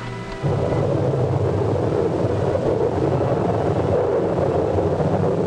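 Tornado roar on a film soundtrack: a loud, steady, rushing rumble of wind that starts suddenly about half a second in and carries on without a break.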